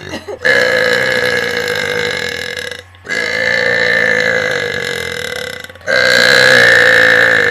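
Three long, drawn-out burps in a row, each lasting about two and a half seconds and held at a steady pitch. The first starts about half a second in, and the third is the loudest.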